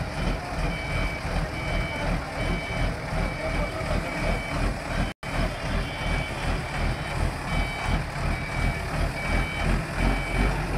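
A 10-ton diesel forklift's reversing alarm beeping steadily in two alternating pitches, over the low rumble of its running diesel engine. The audio drops out briefly about five seconds in.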